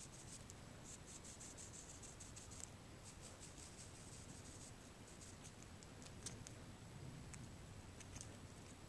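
Faint, quick scratchy strokes of a makeup brush rubbed back and forth over the skin of a forearm, blending in concealer.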